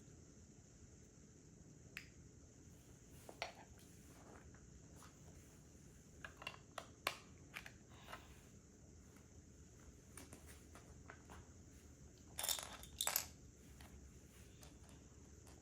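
Plastic Lego pieces being handled and pressed together, making scattered sharp clicks. The clicks come in a quicker run around the middle, and there is a louder rattle of pieces near the end.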